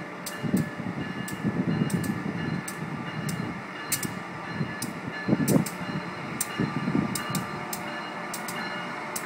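Amtrak AEM-7 electric locomotive and passenger cars rolling slowly into a station: a low rumble that swells and eases, with sharp clicks of the wheels over rail joints and switches every fraction of a second and a faint steady whine.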